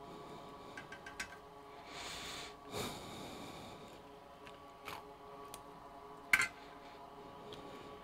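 Workbench handling noises: a few light clicks, a short hiss, and a sharper knock about six seconds in, over a steady electrical hum.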